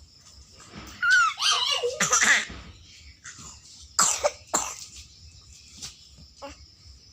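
A young child coughing: two sharp coughs about four seconds in, then a couple of fainter ones. Before them, a high-pitched child's voice squeals and laughs.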